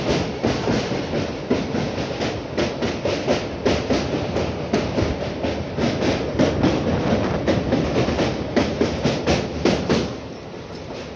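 Wheels of a moving Indian express train coach running over the rails: a fast, uneven clickety-clack of sharp clicks over a steady rumble. About ten seconds in the clicking stops and the train goes on as a quieter, smoother rumble.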